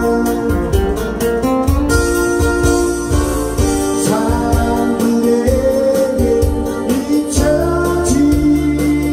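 A man singing a Korean pop ballad while strumming a steel-string acoustic guitar, over a backing track with a steady low bass line.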